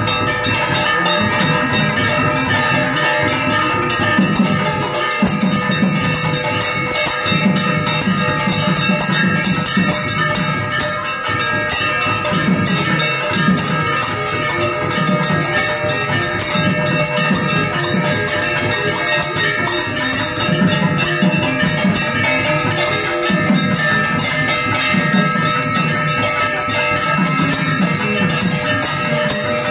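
Temple bells ringing without pause during an aarti, a dense clangour of many ringing tones, with a low repeating pulse underneath.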